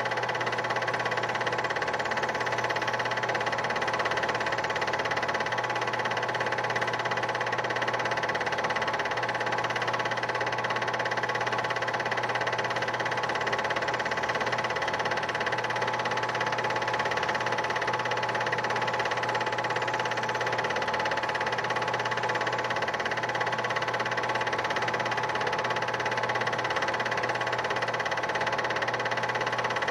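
Home-movie film projector running: a steady mechanical whir and hum that does not change across the scene cuts.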